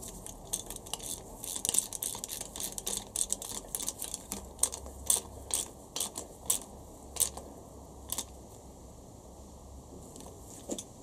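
Ratchet wrench with a 12 mm deep socket clicking in quick, uneven runs as a sending unit sensor is tightened into the cylinder head. The clicks thin out and stop about eight seconds in.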